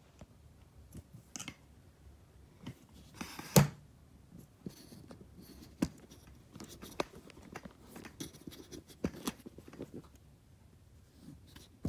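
Scattered knocks, clicks and rustles of a camera being handled and turned around, with one sharp knock about three and a half seconds in.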